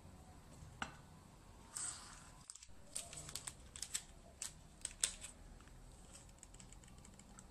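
Small paper sachet of baking powder crinkling as it is handled and shaken out over a bowl: faint rustling with a run of sharp little clicks in the middle.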